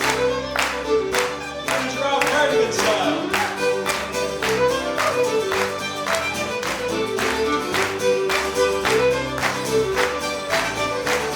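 Live country-folk band playing an instrumental passage led by a fiddle, over a steady drum beat of about two hits a second.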